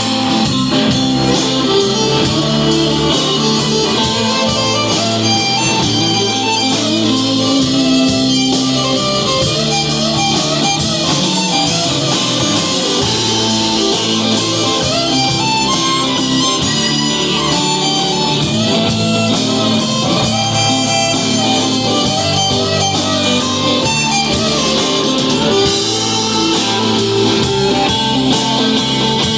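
A live country band playing an instrumental break: a guitar carries a wandering melody over bass and a steady beat, with no vocals.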